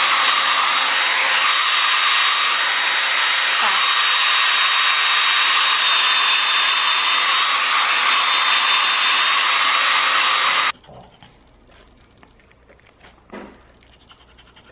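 Handheld hair dryer blowing steadily on a dog's face fur, a loud even rush with a thin steady whine, switched off suddenly about two-thirds of the way through; after that only faint small sounds.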